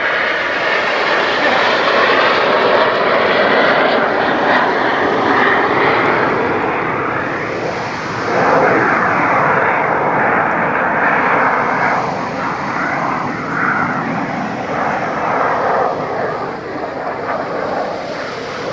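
Snowbirds' CT-114 Tutor jets flying past in formation: a loud, continuous jet rush that swells again about halfway through and slowly eases toward the end.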